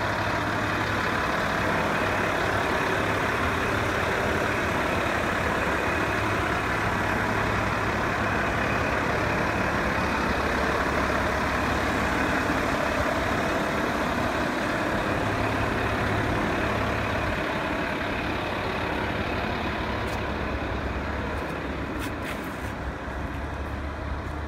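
Volvo L150H wheel loader's six-cylinder diesel engine idling steadily, growing a little quieter near the end, with a few faint clicks.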